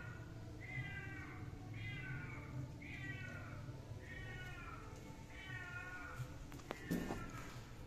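An animal calling over and over, about six short wavering cries roughly once a second, then a single thump near the end.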